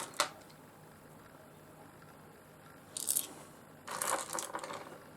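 Pieces of rough opal clinking and rattling together as they are sorted through by hand: a single click just after the start, then two short clattering bursts about three and four seconds in.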